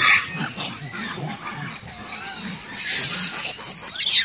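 Macaque monkeys squabbling while feeding: low grunts throughout, with shrill screeches right at the start and again over the last second and a half, the last one falling in pitch.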